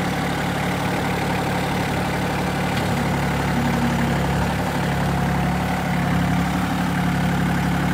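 Compact tractor's engine running steadily while its backhoe pulls on a chain to draw a seized wheel hub off a bus; the engine rises slightly in loudness midway as the pull loads it.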